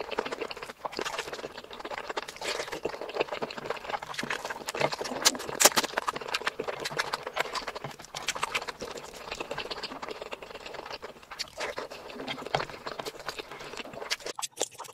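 Close-miked eating sounds: wet chewing and many sharp mouth clicks, with fingers squishing and mixing rice and curry. The sounds drop away just before the end.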